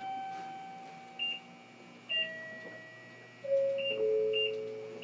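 Electronic announcement chime: four bell-like notes stepping down in pitch, each ringing and fading, with a few short high beeps between them.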